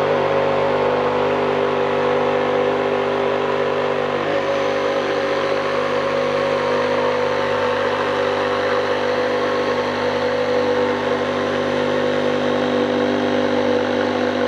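DeWalt DCS334 20V XR brushless cordless jigsaw running at a steady speed, its blade cutting through a thick wooden board. The motor's tone stays even throughout.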